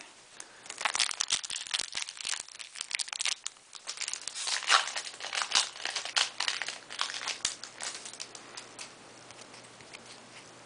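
Foil wrapper of a Yu-Gi-Oh Order of Chaos booster pack crinkling and tearing as it is opened by hand: a dense crackle, loudest about halfway through, that dies away about eight and a half seconds in.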